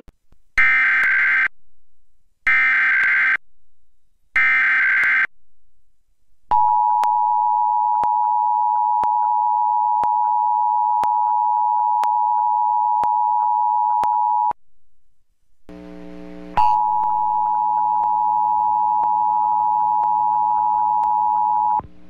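Emergency Alert System test tones: three short bursts of screechy digital SAME header data, each about a second long, then the EAS two-tone attention signal (853 and 960 Hz) held steady for about eight seconds. After a short gap a second steady tone of similar pitch sounds for about five seconds over a low buzz.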